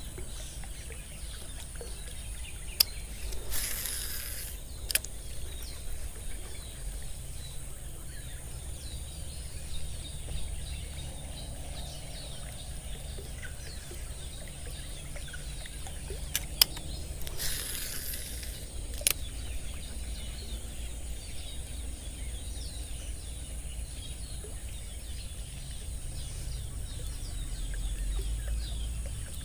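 Outdoor ambience with faint bird chirps and a low wind rumble on the microphone. Twice, an Abu Garcia Ambassadeur baitcasting reel is cast: a sharp click, about a second of hiss as the spool pays out line, then another click as the reel re-engages.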